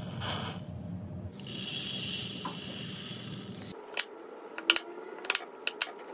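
Knife chopping through a red onion onto a wooden cutting board: a run of sharp, irregular chops in the second half. Before that, a steady hiss.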